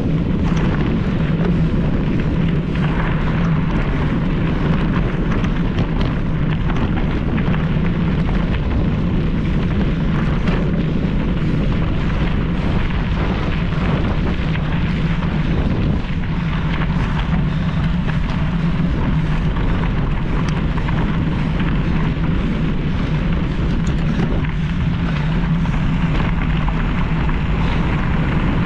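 Wind buffeting a mountain bike rider's onboard camera microphone, a loud steady rumble. Over it runs a constant clatter of rattles and clicks from the bike jolting over rough trail.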